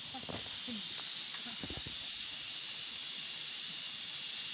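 Steady high-pitched drone of forest insects, the outdoor chorus admired as 'huni', sounding like background music. One shrill tone within it stops about two seconds in.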